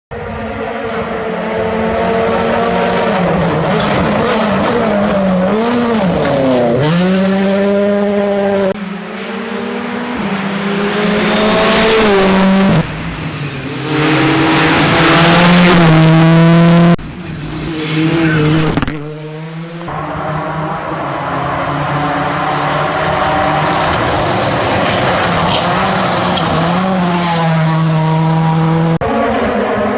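Rally cars at full throttle, engine notes climbing and dropping repeatedly through gear changes and lifts, in a string of short clips with abrupt cuts between them.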